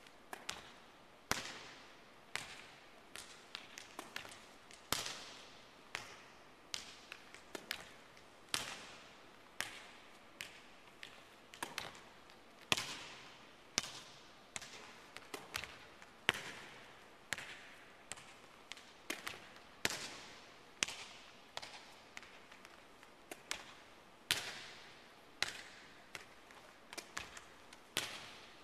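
Volleyballs smacking and bouncing on a hardwood court, sharp hits about once a second, some followed by smaller bounces, each echoing through the large empty arena.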